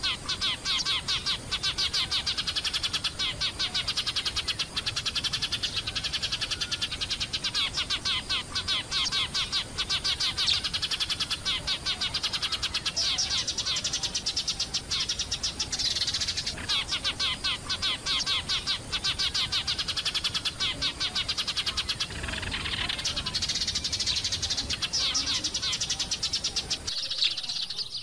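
A flock of Eurasian tree sparrows chirping continuously, many rapid, overlapping short chirps.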